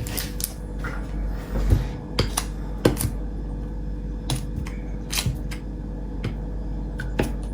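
Vintage Zippo lighters being handled: a scattering of sharp metallic clicks and clinks at irregular intervals, over a faint steady hum.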